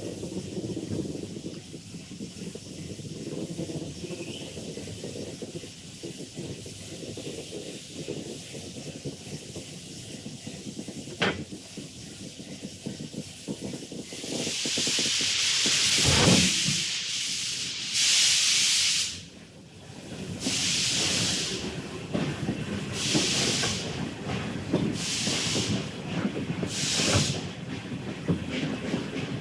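Steam locomotive: a low rumble with a single sharp clank about eleven seconds in, then loud hisses of steam begin about halfway through, first a long blast and then shorter puffs about every two seconds as the engine gets under way.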